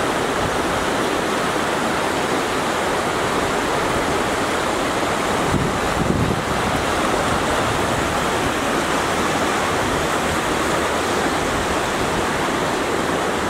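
River water rushing fast over boulders in a steady, even roar of whitewater.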